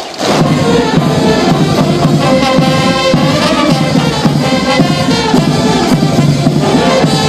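A military brass band starts playing about a quarter second in and plays on steadily, with drums beneath.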